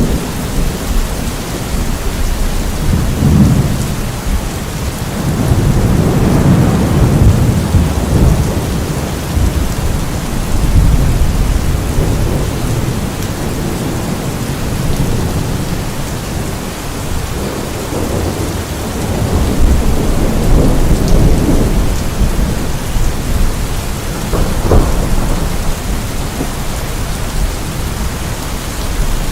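Steady rain falling, with rolling thunder rumbling low in long swells that rise and fade several times.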